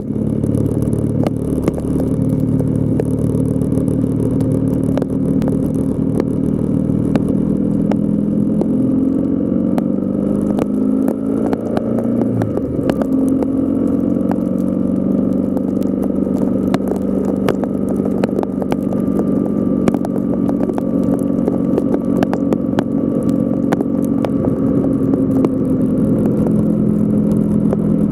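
A motor vehicle's engine running steadily as it drives on a wet road, its pitch shifting about twelve seconds in. Many sharp ticks run throughout, from sleet and rain striking the camera.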